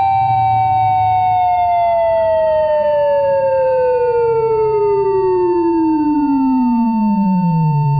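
Emergency Alert System alert tone: one steady high tone held throughout, while a second, buzzier tone starts just below it and, after about a second, slides steadily down in pitch to a low drone. A low hum runs underneath.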